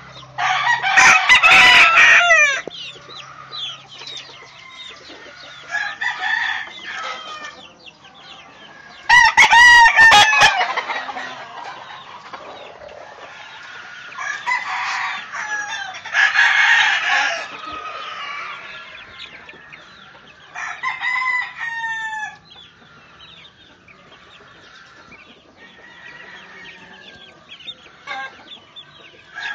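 Young chickens clucking and calling, in loud bouts every few seconds, with quieter calling over the last several seconds.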